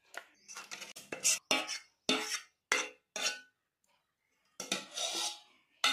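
Steel spoon scraping and clinking against a steel bowl and a steel mixer-grinder jar while scooping thick, chilled ice cream mix. It comes as a run of short scrapes, a pause past the middle, then a longer scrape near the end.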